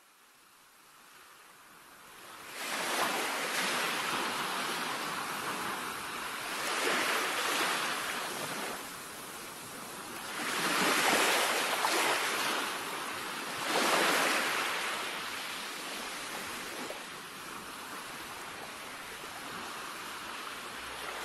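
Ocean surf: a wash of breaking waves that fades in over the first couple of seconds, then swells and falls back every three to four seconds before settling to a steadier hiss.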